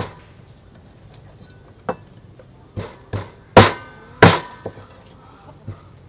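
Cleaver chopping through a raw whole chicken onto a wooden chopping block: about eight irregular chops, the two loudest near the middle.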